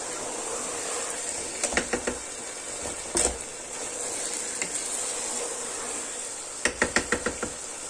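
A wooden spatula stirring and turning rice in a pot of chicken biryani over a steady sizzle, as the last of the cooking water boils off. There are a few knocks of the spatula against the pot, and a quick run of taps near the end.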